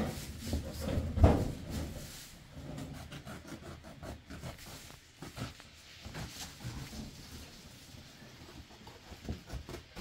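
A large rug being handled and shifted, with one sharp thump about a second in, then faint rustling and light knocks.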